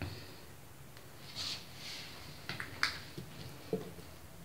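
Faint handling noises of hands working an oiled ball of msemen dough on a stone countertop: soft swishes of skin on dough and a few light taps and clicks.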